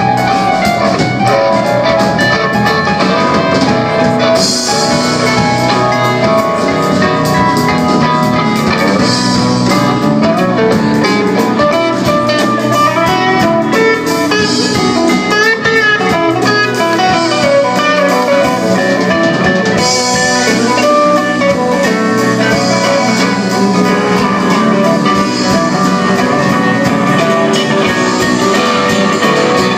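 Live band playing an instrumental passage with guitar and drum kit; the cymbals come and go in stretches.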